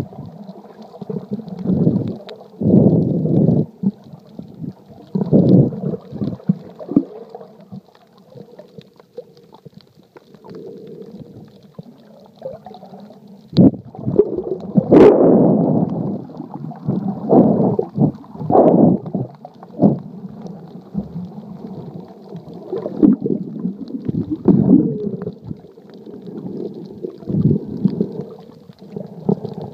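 Muffled underwater rumbling and sloshing of water against an iPhone's sealed Lifeproof case held beneath the surface, coming in irregular surges, with a sharper knock about fifteen seconds in.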